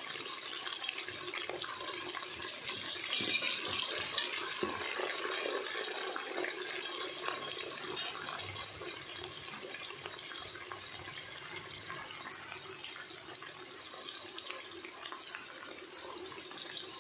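Sliced red onions frying in hot ghee and oil in an aluminium pressure cooker: a steady sizzle with scattered crackles that eases slightly toward the end.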